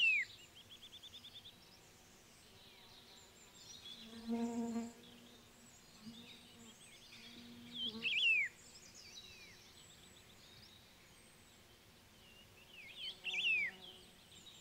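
Black-faced laughingthrush calling: short, high whistled notes that slide downward, in three bursts about five seconds apart, with a quick rattling trill just after the first. A low buzz comes about four seconds in.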